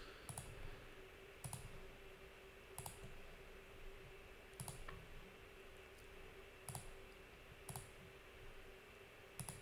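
Faint computer mouse clicks, about seven single clicks a second or two apart, over a low steady hum.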